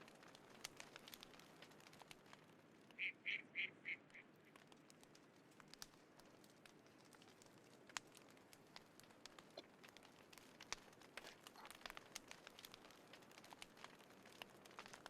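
Small wood fire crackling faintly with scattered pops. A bird calls five quick notes in a row about three seconds in.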